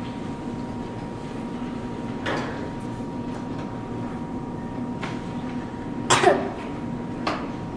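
Room tone with a steady low hum, a few light knocks, and a cough about six seconds in, the loudest sound.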